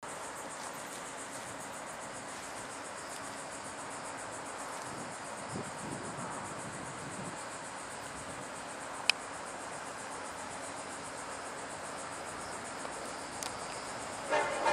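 Insects chirring steadily in a high, finely pulsing band, with one sharp click about nine seconds in. Just before the end a distant train horn begins to sound as the locomotive approaches.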